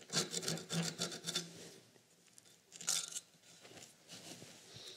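Hacksaw blade scraping around a threaded joint between a steel pipe and a brass valve, trimming off excess plumber's hemp. A quick run of rasping strokes comes in the first second and a half, then one more stroke about three seconds in.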